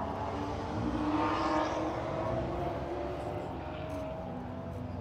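A car engine running, swelling to its loudest about a second and a half in, then easing off.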